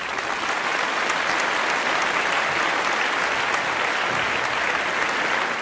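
Audience applause, a steady patter of many hands clapping that eases off near the end.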